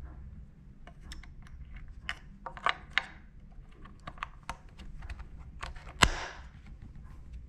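Small plastic clicks and taps as AA batteries are fitted into the battery compartment of a Würth MM 600 multimeter. There is one sharp, loud snap about six seconds in as a battery is pressed down into its contacts.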